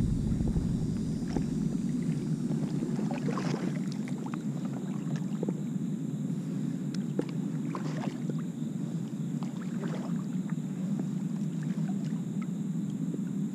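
Water lapping against a plastic kayak's hull as it glides forward: a steady low rush with a few faint knocks.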